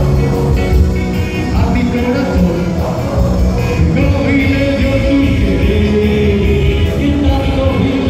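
Live rock-and-roll band playing: drums, electric guitar and bass, with a male singer at the microphone.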